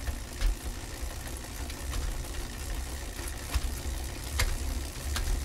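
Bicycle being ridden along a street: a steady low rumble with scattered sharp clicks and rattles.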